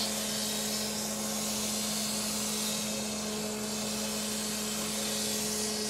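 Crankshaft grinder running: a steady low hum with a fainter higher tone above it, under an even hiss.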